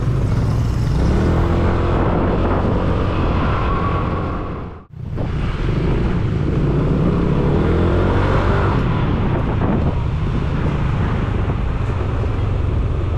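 Yamaha motor scooter's engine accelerating and easing off, its pitch rising and falling twice, under heavy wind rumble on a helmet-mounted camera. The sound drops out briefly about five seconds in.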